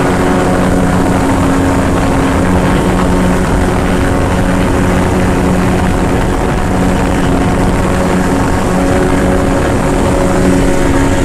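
Small outboard motor running loud and steady at cruising speed, driving a boat along.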